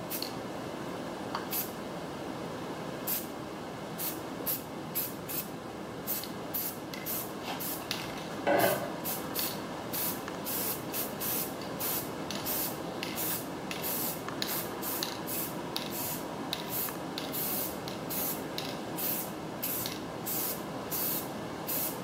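Aerosol spray-paint can spraying a steel trailer wheel rim in many short hissing bursts, coming about two a second through most of the stretch.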